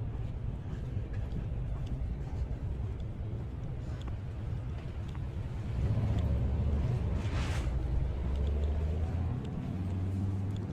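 Street traffic rumble, with a car passing close by: the sound swells about six seconds in, peaks with a tyre hiss, and fades by about nine and a half seconds. Faint clicks are scattered through it.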